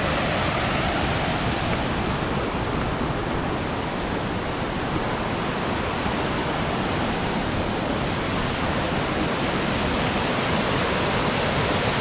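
Steady rush of fast-flowing water from the river and its cascades, an even hiss without breaks.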